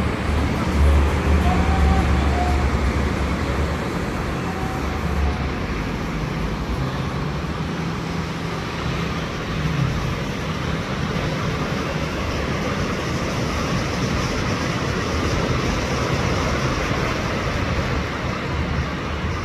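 Wind blowing across the microphone over the steady rush of the sea, with the heaviest low rumble of the wind in the first four seconds.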